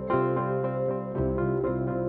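Background instrumental music: a gentle melodic tune with notes changing several times a second.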